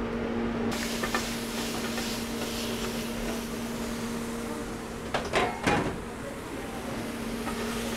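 Florida spiny lobster halves sizzling in a hot sauté pan on a gas range, starting about a second in, over a steady low hum; a few metal clanks about five seconds in.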